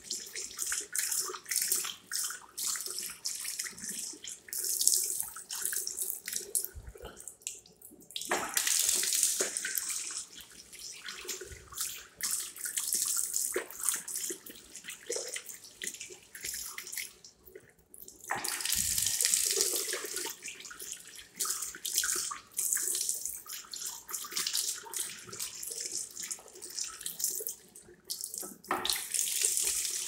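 Water running from a chrome tap into a ceramic wall-mounted sink, with hands in the stream. The flow stops briefly three times and starts again.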